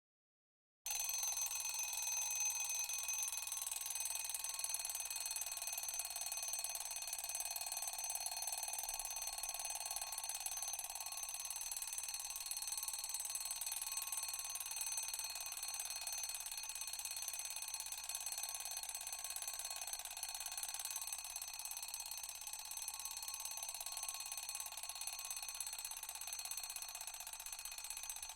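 Mechanical alarm clock bell ringing without a break, its hammer rattling rapidly against the bell. It starts suddenly about a second in.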